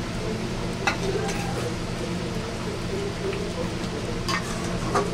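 Fried eggs going into a kadai of egg-curry gravy and being stirred with a metal spatula, with a low sizzle from the gravy and a few sharp clinks of metal against the aluminium pan, over a steady low hum.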